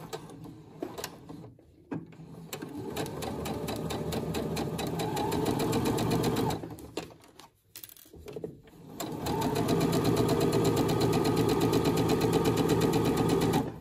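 Electric sewing machine stitching a straight seam in two runs: the first starts about two and a half seconds in and grows louder over about four seconds, then after a pause of about two seconds the machine runs again steadily and stops near the end.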